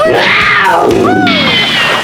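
Cartoon sound effect: a loud, noisy whoosh sweeping down in pitch over about a second and a half, with a short rising tone about a second in and a high tone sinking slowly near the end.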